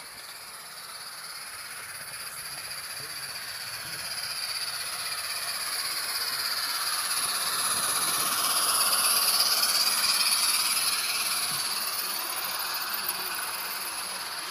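G gauge live steam locomotive hissing steam as it runs past, growing louder to a peak about nine seconds in and then fading.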